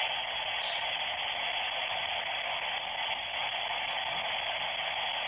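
Steady white-noise static hissing from an S Box spirit box, even and unbroken.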